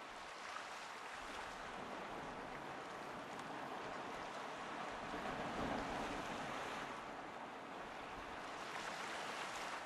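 Steady wash of sea and wind ambience, an even noise without any tone, swelling slightly around the middle.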